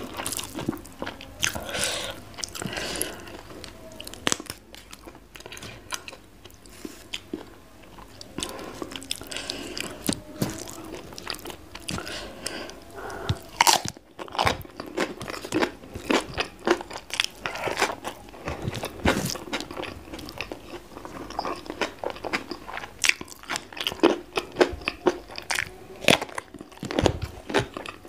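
Close-miked eating sounds: biting and chewing a hand-eaten meal of rice, sambal-smashed fried omelette and raw vegetables, with many sharp crunches over wet chewing, coming thicker and louder in the second half.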